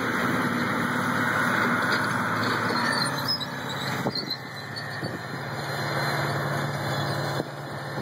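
Diesel engine of a large John Deere four-wheel-drive articulated tractor working under load as it pulls a tillage implement through a field, a steady drone that shifts slightly about four seconds in and again near the end.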